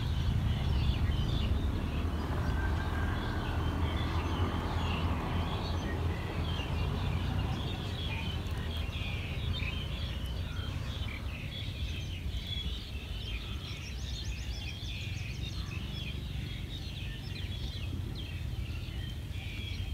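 Outdoor ambience of many small bird chirps over a steady low rumble, with a quick high trill a little after the middle.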